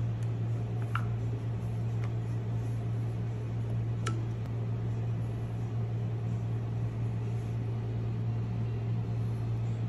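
A steady low hum, with a few small sharp clicks as the phone is handled, about one, two and four seconds in.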